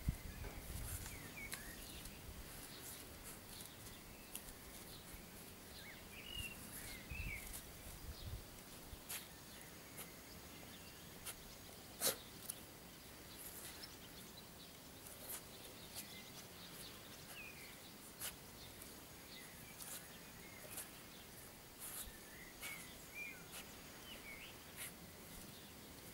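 A Doberman sniffing at a hole in the soil with its nose pushed in, in short scattered sniffs, with one sharp click about halfway through. Faint bird chirps come now and then.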